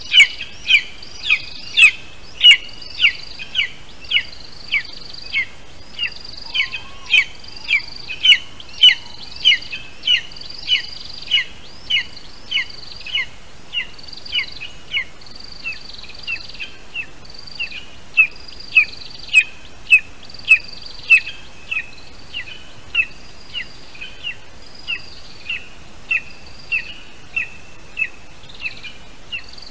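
Eagle chick on its nest calling: one short, sharp, downward-slurred chirp repeated steadily about one and a half times a second, growing fainter from about halfway.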